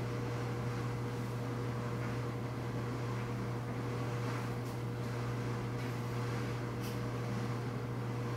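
Steady low room hum with a thin constant tone above it, even throughout. Two faint light clicks come about halfway through and again about two seconds later.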